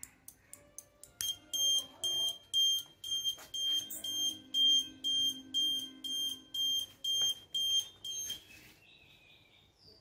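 Small 12 V buzzer alarm beeping, a high piercing tone pulsed about three times a second, then cutting off: the Arduino vibration-sensor burglar alarm on the scooter has been triggered. A quick run of clicks comes just before the beeping starts.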